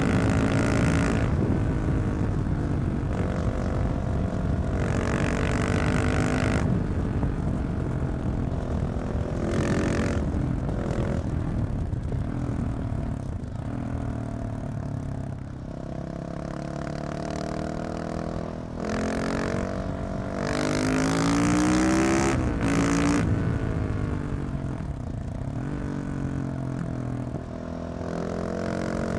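KTM 690 SMC R single-cylinder supermoto engine through a decatted Leovince exhaust, under way. It pulls up through the revs and falls back again and again, its pitch rising and dropping, with short breaks for gear changes every few seconds.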